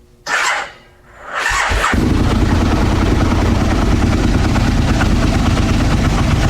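Aprilia RSV1000 V-twin motorcycle being started: two short, halting bursts of the starter, then from about two seconds in the engine runs loud and steady. The hesitant cranking is the kind of stall that the owner blames on the weak stock battery cables.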